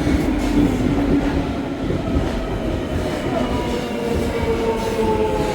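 Electric train at a station platform: steady rumble of the wheels with a motor whine that slowly falls in pitch as the train slows.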